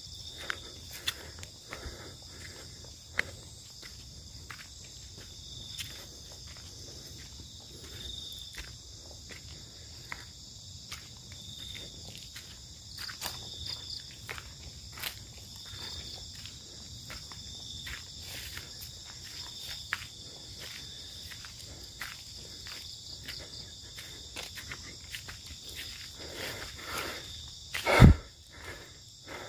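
Evening insect chorus of crickets, a steady high chirring with a pulsing note that repeats every couple of seconds, over scattered light clicks and crackles. A single loud thump near the end.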